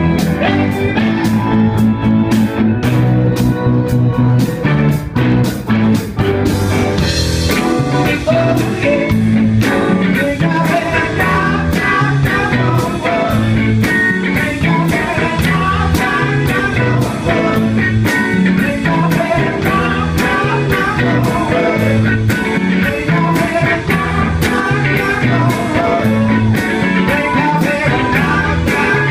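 Live rock-soul band playing: electric guitars, bass, keyboards and a drum kit keep a steady beat, and a male lead singer sings into the microphone.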